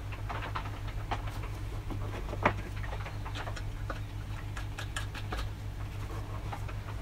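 Light, irregular metallic clicks and taps from camshaft bearing caps being handled and set onto a cylinder head over the camshaft, with one sharper tap about two and a half seconds in. A steady low hum runs underneath.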